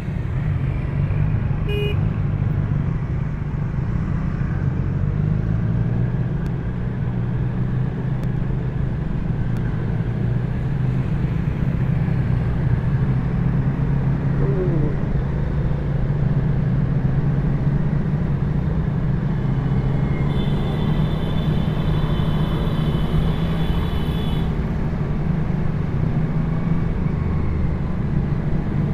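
Motor vehicle engine running steadily on the road with wind noise. A horn gives a short toot about two seconds in, and another horn sounds steadily for about four seconds past the two-thirds mark.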